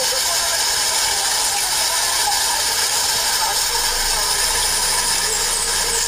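Heavy rain falling: a steady, dense hiss. A faint low engine hum comes in near the end.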